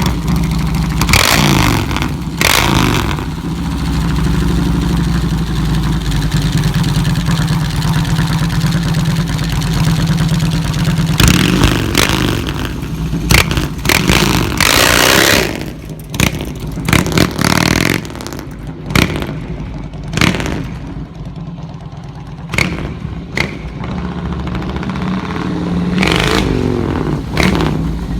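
Harley-Davidson Softail V-twin running through an aftermarket upswept fishtail exhaust, idling and revved again and again in short throttle blips, with a few of them about a second or two in and more clustered in the middle and later part.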